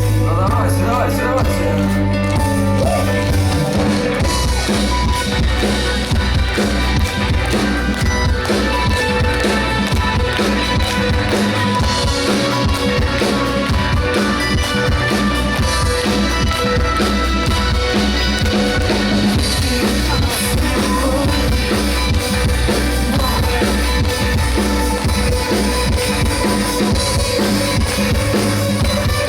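Live rock band playing a song, with drums keeping a steady beat under bass and guitar.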